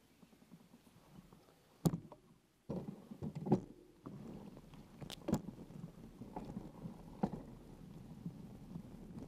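Bicycle rolling over a rutted sandy dirt track: steady tyre and rattle noise with several sharp knocks from bumps. Quiet at first, with one sharp knock about two seconds in and the rumble setting in a little later.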